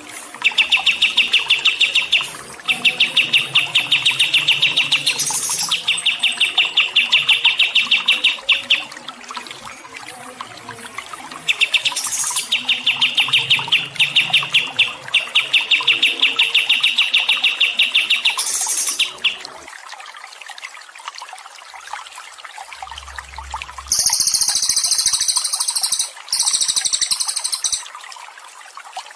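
Songbird singing long runs of rapid, evenly repeated chirps in two extended phrases with a short break between them, over a faint trickle of water. Late on, a very high, shrill buzzing sounds for a few seconds, broken once.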